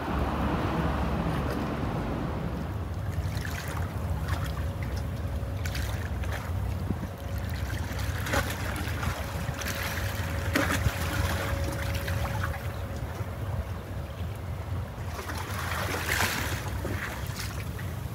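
Steady low engine rumble of a boat, with wind on the microphone and scattered light knocks.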